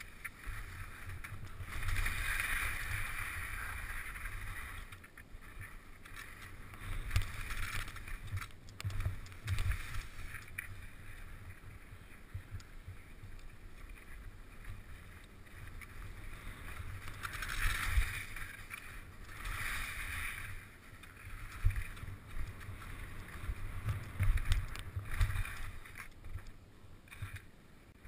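Skis hissing and scraping through snow in swells, louder a couple of seconds in and again around two-thirds of the way through. Irregular low rumbles and knocks from wind and bumps on the helmet camera's microphone run underneath.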